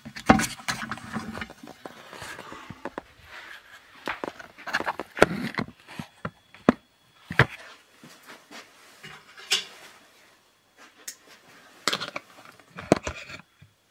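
Handling noise of a camera being picked up and moved by hand: irregular knocks, bumps and rustling close to the microphone.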